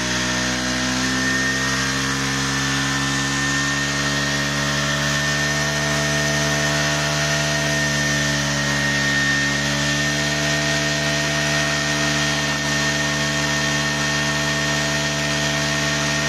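Bajaj Dominar 400's single-cylinder engine held at high revs through a stationary rear-tyre burnout, steady throughout with a high whine running over it.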